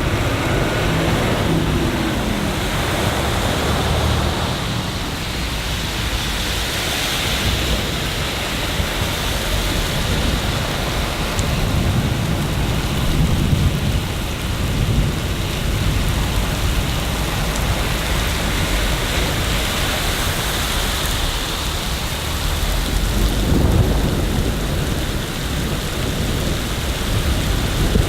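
Steady heavy rain, with deep low rumbles swelling up three times.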